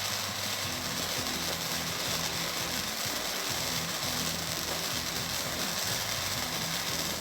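A firework fountain burning with a steady, even hiss.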